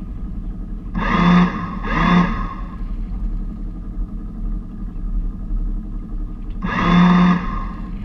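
Lewmar electric bow thruster fired in three short bursts, each a loud whine of about half a second: about a second in, about two seconds in and about seven seconds in. A steady low hum runs underneath.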